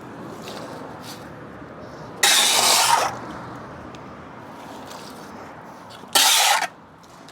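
Pressure washer's high-pressure water jet on block paving, starting and stopping in short bursts of under a second, twice, over a steady lower hiss.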